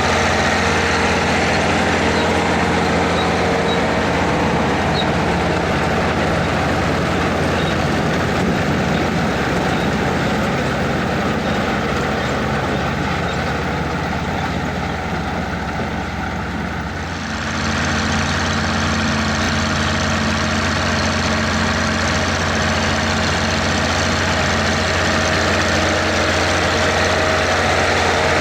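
Mercedes-Benz MB-Trac tractor's diesel engine running steadily with machinery noise. About seventeen seconds in, the sound eases slightly and then abruptly picks up again.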